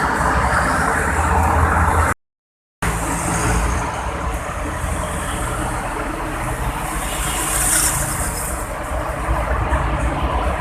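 Steady noise of highway traffic, cars and trucks passing on the toll road. The sound cuts out completely for about half a second, roughly two seconds in.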